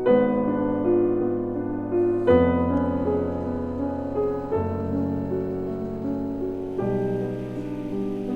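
Background music: a gentle piano piece, with a new chord struck about every two and a quarter seconds.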